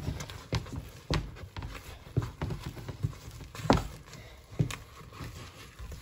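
Wooden spoon knocking and scraping in a stainless steel pot as thick, sticky fufu dough is stirred hard: irregular knocks roughly once a second, the loudest a little past the middle.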